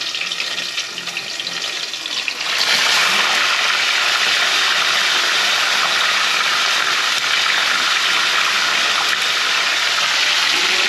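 Whole tilapia going into a pan of very hot oil for deep-frying. Light crackling of the oil, then about two and a half seconds in a sudden loud, steady sizzle as the fish enters and the oil bubbles up around it.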